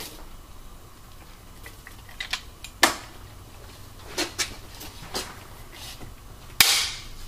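Lever-action hand punch punching holes through a thin sheet-metal lunch box: a series of sharp metallic clicks and snaps as the jaws close and the punch goes through, the loudest near the end.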